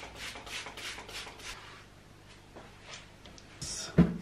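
Reeded glass film being pressed and smoothed onto a wet mirror by hand: a run of soft rubbing swishes, about three a second, fading after the first second and a half. A single thump near the end.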